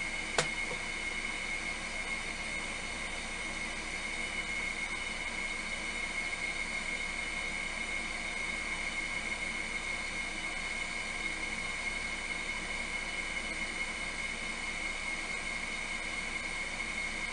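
A fan-driven appliance running steadily: an even whirring hiss with a constant high whine over it. A single sharp click sounds just after the start.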